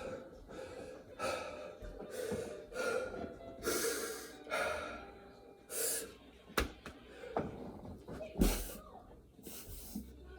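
A man gasping and breathing hard, out of breath mid-set of burpees with push-ups, each breath about a second apart. Two sharp thumps in the second half, the later one the loudest.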